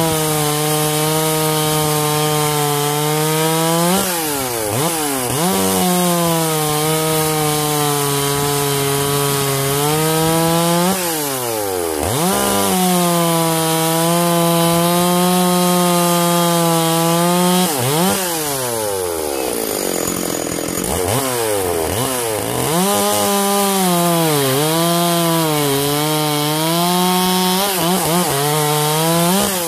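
Stihl 044 chainsaw with a dual-port muffler, freshly rebuilt and fitted with a new skip-tooth chisel chain, cutting through a log. The engine holds a steady pitch under load in each of four or so cuts and revs up each time the bar comes free. About two-thirds of the way through the engine drops off to a lower pitch for a couple of seconds before the last cut.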